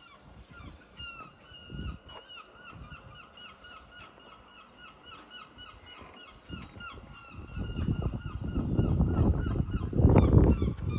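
A bird calling over and over in short hooked notes, about three a second. A loud low rumbling noise builds from about seven seconds in and is strongest near the end.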